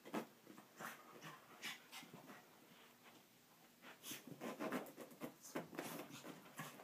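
Chihuahua breathing hard and scuffling as it rubs and rolls itself along a carpet after a bath, in faint irregular bursts that come thickest about four to six seconds in.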